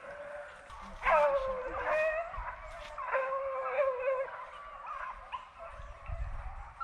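Several deer hounds baying on a running chase: long, overlapping bawls that fall in pitch, the loudest about a second in.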